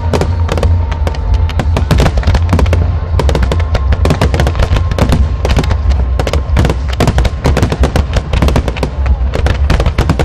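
Fireworks display at full intensity: a dense, rapid barrage of shell bursts and crackle, many bangs a second with no pause, over music playing beneath.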